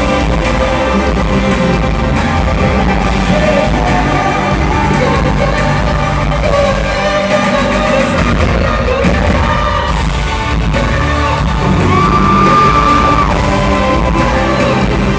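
Live pop band music with a male lead singer, loud and steady, recorded from among the audience in an arena.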